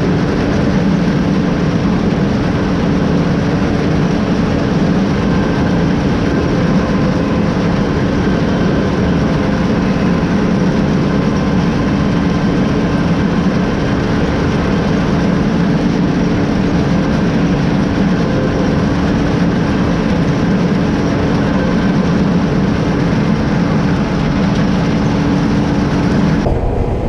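Combine harvester running steadily under load while cutting soybeans: a loud, even machine drone with a steady whine. The sound changes abruptly near the end.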